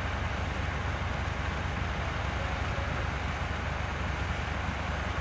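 Caterpillar tracked excavator's diesel engine running steadily as it holds a suspended concrete panel, a low even rumble.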